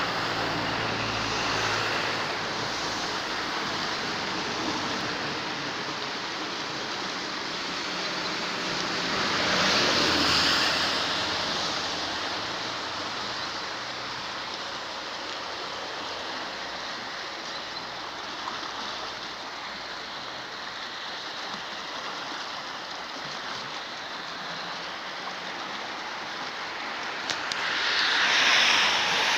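Rushing floodwater of a swollen river, a steady noise that swells louder twice, about ten seconds in and near the end.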